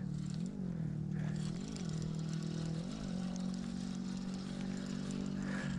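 Spinning reel being cranked to bring in a hooked fish: a steady gear whir whose pitch lifts slightly about once a second.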